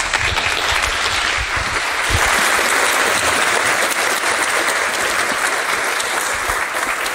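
Audience applauding steadily in a lecture hall.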